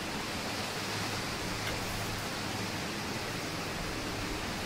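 A steady, even rushing hiss with no distinct sounds in it, keeping the same level throughout.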